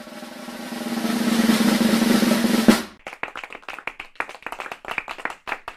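Drum roll sound effect building in loudness for a score reveal, stopping abruptly a little under three seconds in, followed by scattered sharp clicks.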